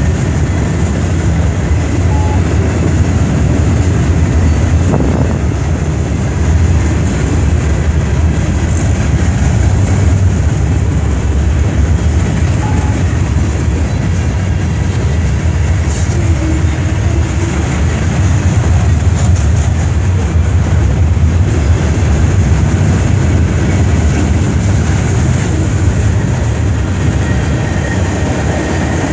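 CN freight train rolling by, its wheels making a steady, loud rumble on the rails.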